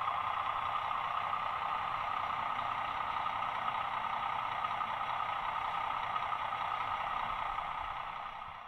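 OO gauge model train running, giving a steady engine-like drone that fades away near the end.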